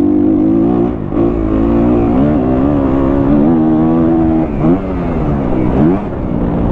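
2023 Kawasaki KX250F's single-cylinder four-stroke engine running under throttle through a Pro Circuit exhaust, the revs rising and falling as it is ridden. The revs dip briefly about a second in, and twice in the second half they drop and climb again quickly.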